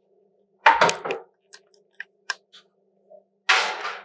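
Metal baking sheet of chicken wings clattering as it is handled, followed by a few light clicks, then near the end a half-second scrape as the oven is opened and the pan slid in.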